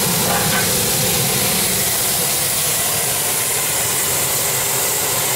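Steady hiss and rush of a steam boiler's blower ring running open, pulling a strong draft of air through the firebox.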